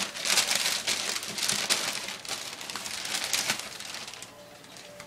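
Tissue paper rustling and crinkling in quick bursts as it is pulled out of a gift box, dying away about four seconds in.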